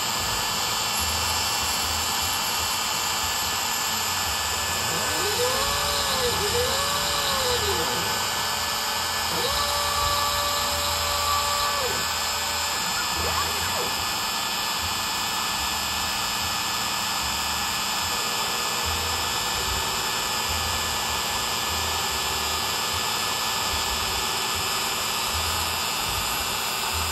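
Small CNC router's spindle motor running with a steady high whine as its fine engraving bit carves a shallow first pass into a wood block. About five seconds in, a second, lower whine rises and falls in pitch twice, then holds a level pitch for about two seconds: the axis drive motors speeding up, traversing and slowing as the gantry moves.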